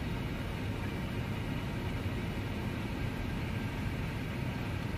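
Steady low rumble with a hiss of air: the background noise of a powered-up Airbus A320 flight deck on the ground.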